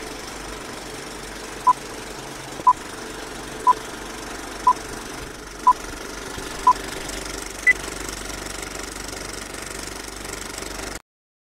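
Old film projector running with a steady mechanical clatter, under a countdown leader's short beep once a second: six beeps at the same pitch, then a seventh one higher. The clatter cuts off suddenly near the end.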